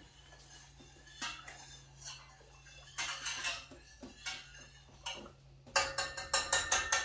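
Metal pot and utensils clinking and knocking at the stove: scattered light knocks, then a quick run of clinks near the end.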